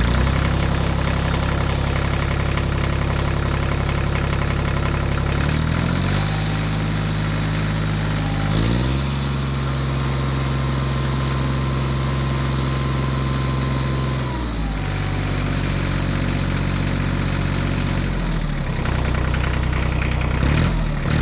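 Diesel tractor engine running steadily, its engine speed shifting up and down several times.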